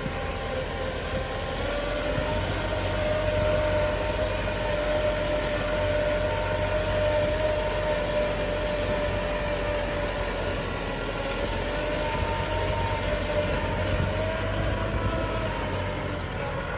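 Kubota M6040 tractor's diesel engine running steadily under load as it pulls a disc plough through dry soil, with a steady whine held over the engine drone.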